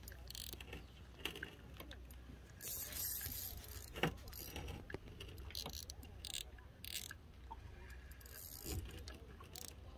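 Faint clicks, rustles and scrapes of a fishing rod and reel being worked while fighting a heavy fish, over a low steady rumble; one sharper click about four seconds in.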